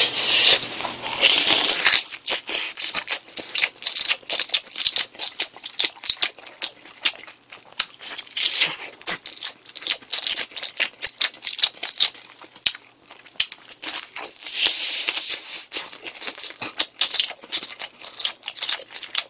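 Close-miked eating of sauced fried chicken: a drumstick is torn apart by hand and chewed, giving a dense run of wet clicks and smacks. Louder, hissier tearing and sucking noises come about a second in and again near the three-quarter mark.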